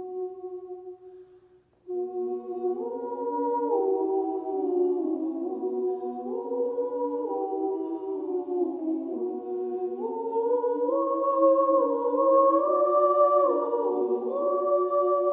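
Background music: an a cappella choir singing long held chords that slide from one to the next, with a brief drop-out near the start.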